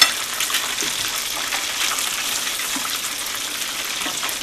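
Flour-breaded fish fillets deep-frying in hot oil in a frying pan: a steady sizzle full of small crackling pops, with one sharp click right at the start.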